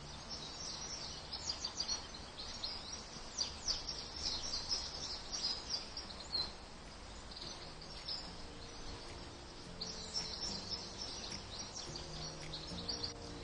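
Wild birds chirping and singing, many quick high notes in two spells with a short lull between.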